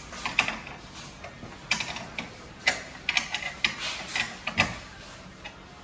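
Ratchet wrench clicking in short irregular runs as the side step's mounting screws are tightened.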